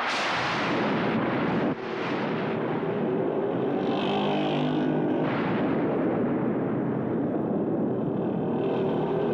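Cartoon sound effects of a police motorcycle engine running through a heavy rainstorm, under a steady, loud rush of rain and wind that starts abruptly.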